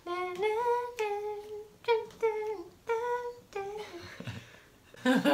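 A voice humming a wordless tune in a string of short held notes, giving way to laughter about four seconds in.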